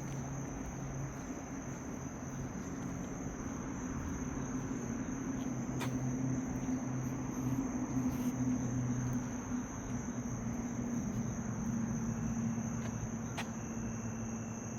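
Crickets or similar insects calling in one steady, unbroken high-pitched trill, over a low steady hum.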